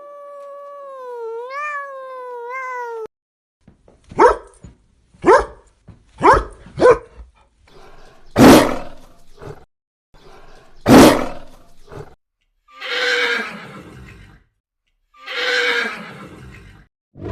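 A run of recorded wild animal calls, one after another: a held, wavering pitched call, then four short sharp cries, two loud calls, and two longer rasping roars.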